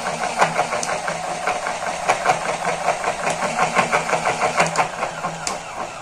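Small USB-powered electric motor of a homemade cardboard model washing machine running, its drum turning with a cloth inside: a steady hum with a fast, regular knocking.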